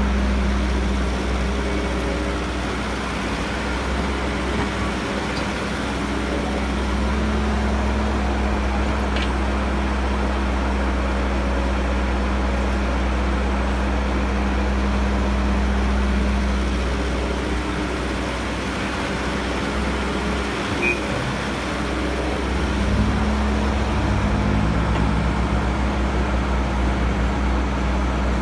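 Diesel engine of a Caterpillar E315B hydraulic excavator running steadily under working load, a continuous low drone with small rises and dips in level and pitch as it digs and swings.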